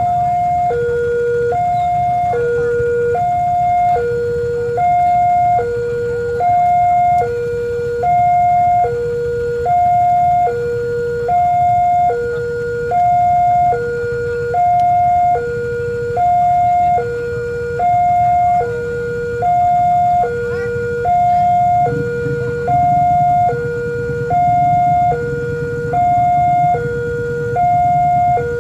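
Railway level-crossing warning alarm sounding a two-tone chime, alternating a high and a low note about once every 1.3 seconds, signalling that a train is approaching and the barrier is down. A low rumble builds beneath it about three-quarters of the way through.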